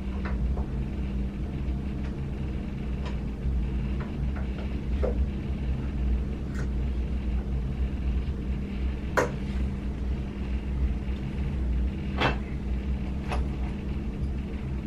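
Handling noises: scattered light clicks and knocks, the sharpest about nine and twelve seconds in, over a steady low hum.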